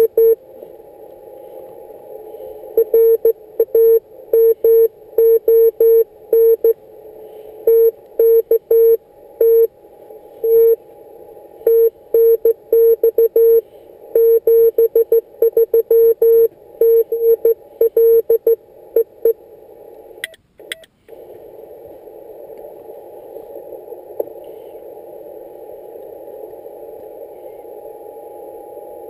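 Morse code on a Yaesu FT-817ND transceiver: a steady mid-pitched beep keyed in dots and dashes over a narrow band of receiver hiss for about nineteen seconds. About twenty seconds in, a couple of clicks come as the hiss cuts out briefly, and then there is only hiss.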